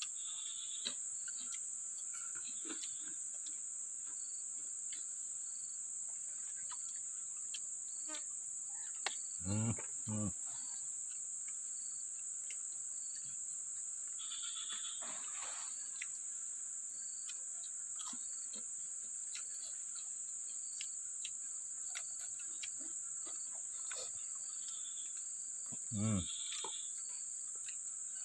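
Steady, high-pitched chorus of insects, crickets or similar, running unbroken, with scattered faint ticks. A short voice sound breaks in twice, about ten seconds in and again near the end.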